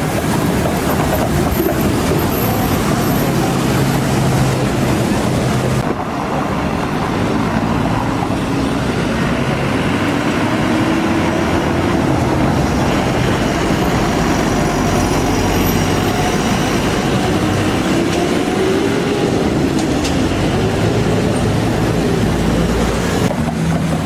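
City buses running through street traffic, their engines humming, with the engine note rising and falling as a bus pulls away.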